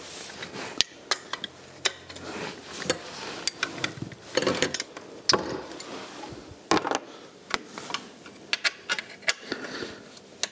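Spanners working the alternator's mounting bolts to loosen the alternator and slacken the V-belt: irregular metallic clicks and clinks of the hand tools on the bolts.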